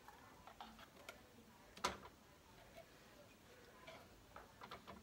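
Faint, scattered clicks and taps of a spoon in a small ceramic bowl as cream of mushroom soup is spooned and worked in it, with one sharper clink about two seconds in and a few light taps near the end.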